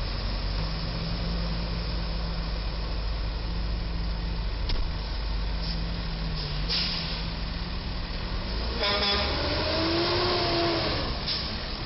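Truck engines running as the box truck and a heavy tow truck drive off through the intersection, with short hisses. About nine seconds in, a horn sounds for roughly two seconds, its pitch sliding up and then back down.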